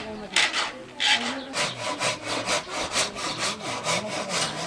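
Hand saw cutting through wood in back-and-forth strokes, slow at first and then about four strokes a second.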